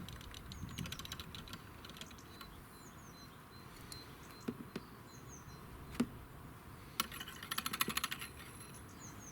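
Small birds chirping in the background, with a few sharp clicks of handling and, about seven seconds in, a quick run of rapid ticks lasting about a second.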